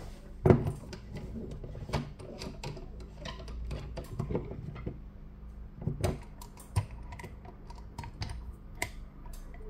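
Irregular light clicks and knocks of a phone repair press's plates being handled and set down on the work mat, the loudest about half a second in.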